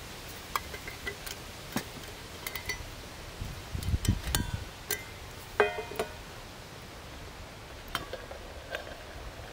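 Metal camp cookware clinking and knocking on a wooden table, with a few low bumps a little before halfway. One clink about halfway through rings briefly.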